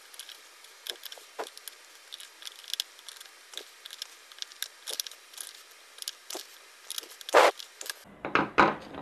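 Screwdriver driving home the carburetor's mounting screws on a Briggs & Stratton 500 series engine: scattered small clicks and scrapes of metal on metal, with a few louder knocks near the end.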